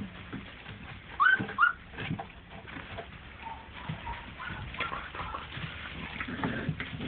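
Month-old puppies whimpering with short, high, rising squeaks. There are two louder squeaks about a second in, and softer whines through the rest.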